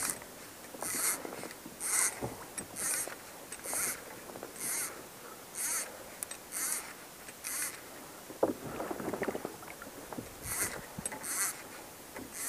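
Hobie Mirage pedal drive worked in reverse, giving a short squeak with each pedal stroke, about one a second. The squeaks pause for a couple of seconds with a louder rustle a little over eight seconds in, then start again.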